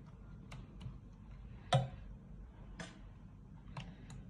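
A metal spoon clicking and tapping against the baking dish while meat sauce is spread over lasagna sheets: about half a dozen light, irregular clicks, the loudest nearly two seconds in.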